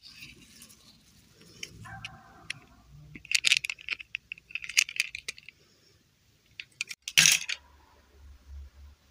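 Light clicking and clinking of a small hard plastic doll and its snap-on dress being handled, in two quick clusters about a second apart, then a single louder knock near the end.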